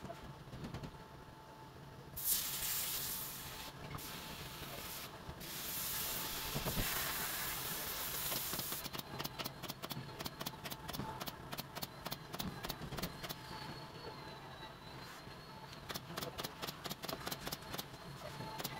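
Glue spray gun hissing in bursts for several seconds, with two short breaks, then stopping. It is followed by a fast, even run of sharp clicks with a faint thin whistle.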